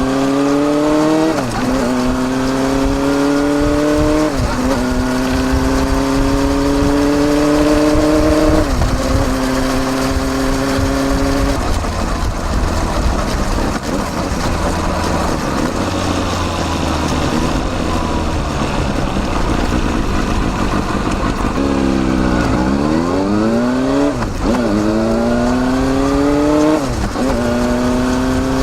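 Exhaust of a Kawasaki Balius 250cc inline-four through a baffled Wr's muffler, heard close at the silencer while riding. It rises in pitch through the gears with three upshifts early on, then goes off the throttle in a long lower stretch. Near the end it pulls away again with two more upshifts.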